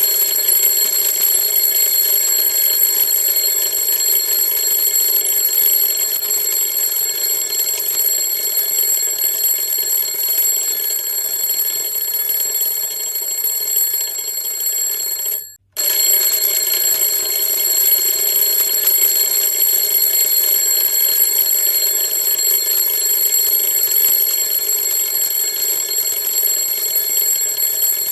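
Alarm clock ringing nonstop in a loud, steady, high ring. It cuts out for a split second about halfway through and starts again the same.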